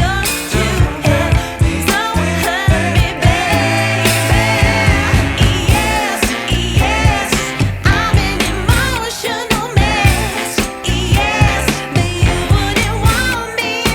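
Background music: a song with a singing voice over a steady, even beat.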